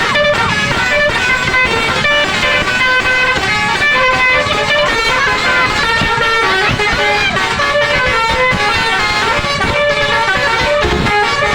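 An Indonesian bus's multi-tone 'telolet basuri' horn playing a melody of short stepped notes, with the bus's engine running underneath.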